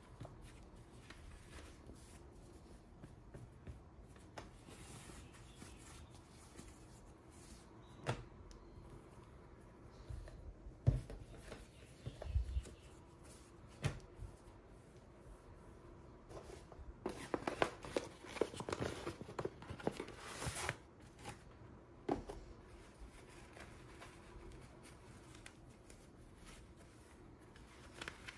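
Faint handling sounds of cotton briefs and a cardboard box on a wooden table: fabric rustling, with a few light knocks on the tabletop and a denser spell of rustling and crackling about two-thirds of the way through.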